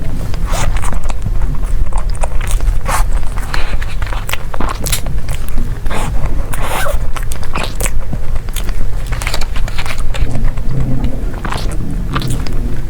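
Close-miked eating of desserts: repeated bites and chewing with crisp, sticky clicks at an uneven pace, over a steady low rumble.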